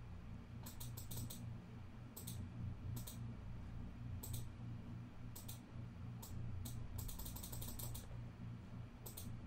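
Computer keyboard and mouse clicks in short scattered bursts, with a quicker run of keystrokes about seven seconds in, over a low steady hum.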